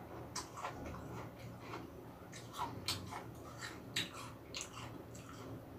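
Crunching and chewing a crisp red Hongok (Jonathan) apple close to the microphone: irregular crisp crunches, a few louder ones between about two and a half and four seconds in.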